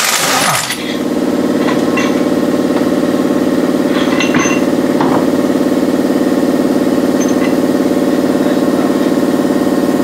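A pneumatic impact wrench's rattle stops about half a second in, and a steady, evenly pulsing machine drone takes over. A few light knocks come as the race truck's wheel and tyre are pulled off the hub.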